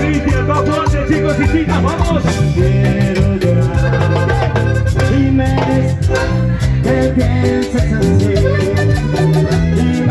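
A live band playing Latin dance music, with a steady beat over a bass line and melodic instrument lines.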